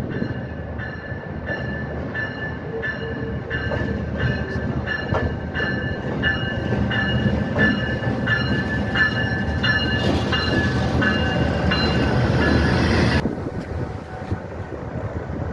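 Pakistan Railways diesel locomotive drawing slowly into a station platform, its engine running with a heavy rumble. Over it is a high-pitched metallic ringing from the running gear that pulses at a steady beat, about one and a half times a second. The sound grows louder as the locomotive comes alongside, then drops off sharply near the end.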